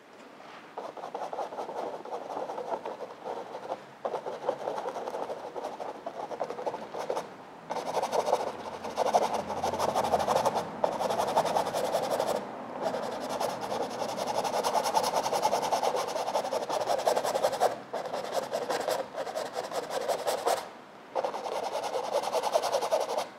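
Paintbrush bristles rubbing acrylic paint across a stretched canvas in continuous strokes: a scratchy rasp that stops briefly several times as the brush lifts off.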